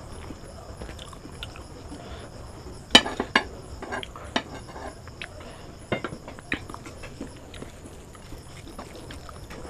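Eating by hand from a plate of biryani: soft rustles and scattered small clicks as rice is mixed, with a couple of sharp clinks about three seconds in as a glass bowl of curry gravy is tipped over the plate.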